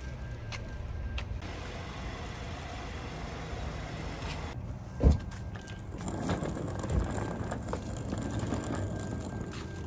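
Steady low rumble of parking-lot surroundings, with one sharp thump about five seconds in and a softer one near seven seconds.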